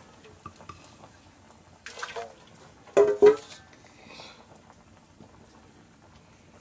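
Metal ladle dipping and pouring hot liquid in a cooking pot, with small clinks. A couple of short, high-pitched voice-like calls stand out about three seconds in.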